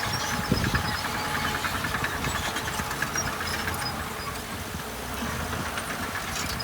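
Heavy diesel engine of earthmoving machinery running steadily.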